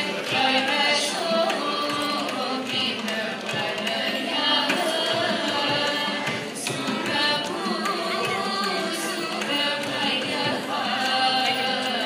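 A group of singers sings a Carnatic tarangam in raga Arabhi, Adi tala, with mridangam accompaniment.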